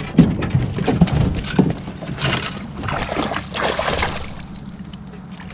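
Irregular splashing and knocking around a small aluminum fishing boat as a hooked small pike is reeled to the side and a landing net is dipped into the water to scoop it. The sounds come in uneven bursts and die down near the end.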